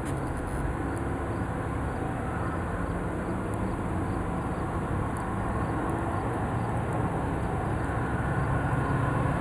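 Steady low engine rumble with a hum, growing louder near the end.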